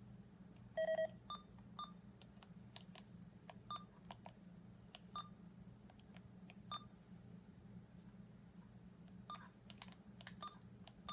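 Keypad beeps and button clicks from a Uniden Bearcat BC125AT handheld scanner as its keys are pressed: one clear beep about a second in, then many short, faint key clicks at irregular intervals, bunched together near the end. A steady low hum runs underneath.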